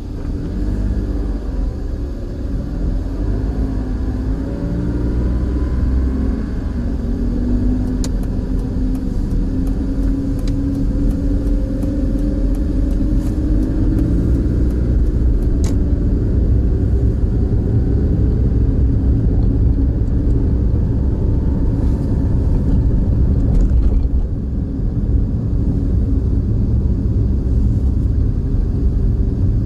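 A car driving, heard from inside: a steady low rumble of engine and road noise, with the engine pitch rising and falling as the car speeds up and slows. A few light clicks come in about a third of the way through.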